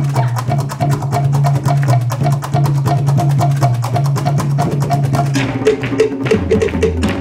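Fast Tahitian drum music: rapid, dense strikes on wooden slit drums over a deeper drum. The rhythm and pitch pattern change about five and a half seconds in.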